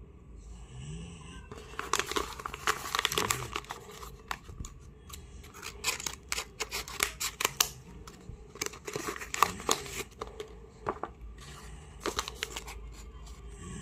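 Scissors snipping through a folded paper blind bag, with the paper crinkling and rustling as it is handled and opened. The sound comes in irregular clusters of sharp snips and crackles.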